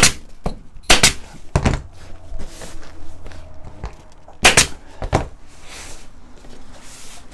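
Pneumatic upholstery staple gun firing staples through the cover into the wooden seat frame, sharp shots in two groups: three or four in the first two seconds, then two more about four and a half seconds in.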